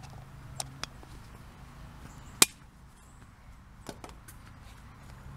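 Small hard plastic toys being handled and set down on a tabletop: a few light clicks and one sharp tap about two and a half seconds in.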